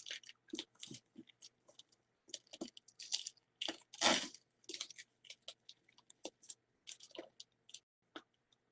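Irregular crinkling and crunching of packaging being handled as a mailed parcel is opened by hand, with one louder crunch about four seconds in.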